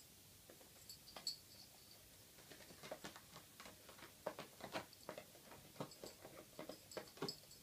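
A cat chewing a moth it has caught, giving soft, irregular crunching clicks that come thick and fast from about halfway through.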